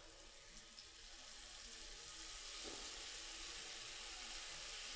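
Breaded onion strings deep-frying in oil: a faint, steady sizzle that grows slowly louder from about a second in.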